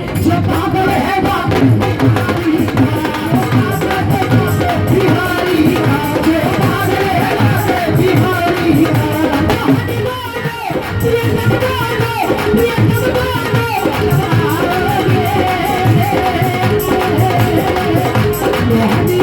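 Hindi devotional bhajan music: a melody with singing over drums and hand percussion, with a slight dip in loudness about ten seconds in.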